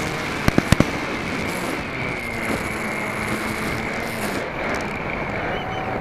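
A quick run of four sharp fireworks cracks about a second in. Under them runs the RC flying wing's steady high motor whine with a constant rush of wind on the on-board microphone.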